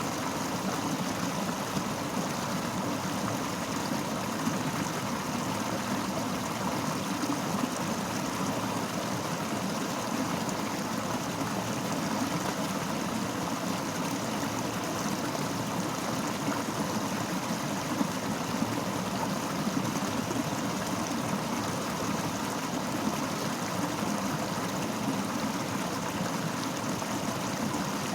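Fast-flowing river rushing steadily, a continuous even wash of water noise.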